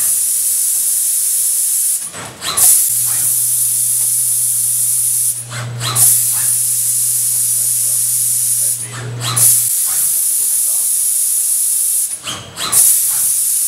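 Steady high air hiss from a robotic hard-drive screwdriving cell. It breaks off four times, about every three and a half seconds, with short clicks and knocks in each break before it resumes. A low steady hum runs under it through the middle stretch.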